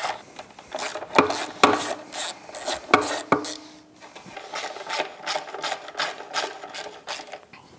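Hand ratchet wrench clicking in quick, uneven runs as a socket backs bolts out of a Yamaha F225 outboard's upper casing.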